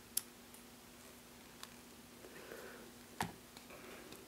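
A small screwdriver clicking against a screw and the plastic camera housing of a drone gimbal while the screw is worked in and made to catch: three sharp ticks, the loudest about three seconds in, with soft handling rustle.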